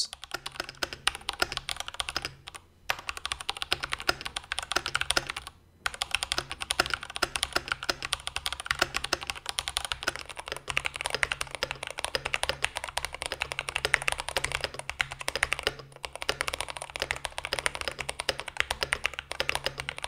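Steady typing on an IQUNIX OG80 Dark Side mechanical keyboard, a dense stream of key clacks broken by a few short pauses. It is heard stock at first, then, from about halfway through, with a tape mod and dense foam filling the hollow under the F-row.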